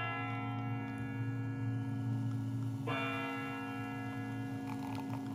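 The Kremlin's Spasskaya Tower clock striking midnight, heard from a television broadcast: a deep bell rings on from a stroke just before, and a new stroke comes about three seconds in, over a low steady hum.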